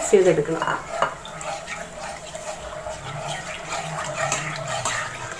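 Wet grated coconut being squeezed and mixed by hand in water in a saucepan: irregular squelching and sloshing as the last of the coconut milk is pressed out.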